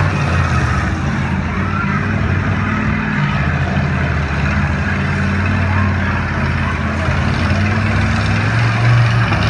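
Demolition derby car engines running under load, a steady loud drone of several engines with the pitch shifting as they rev.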